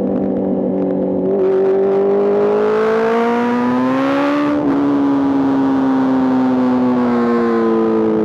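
Honda CBR650R's inline-four running through an Arrow Race-Pro aftermarket exhaust, heard from the bike while riding. The engine note climbs in pitch as the rider accelerates, breaks briefly about four and a half seconds in, then slowly falls.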